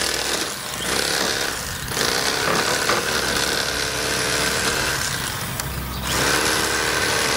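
Electric fillet knife running, its blades buzzing as it slices a crappie fillet off the backbone, with a few short pauses between passes.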